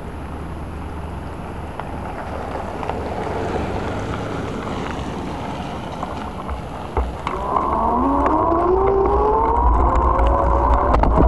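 Wind and road noise from a bicycle-mounted camera while riding. About seven seconds in, the wind rumble grows louder and a pitched whine starts and rises steadily in pitch.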